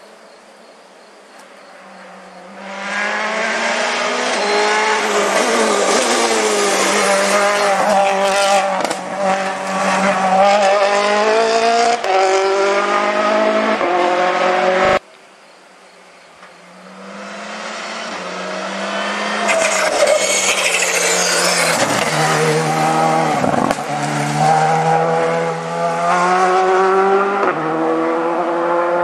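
Rally cars at speed on a forest special stage. One car's engine rises to a loud pitch that climbs and drops again and again as it shifts gears, then cuts off abruptly about halfway through. A second rally car then builds up and passes the same way, its engine revving up and down through the gears.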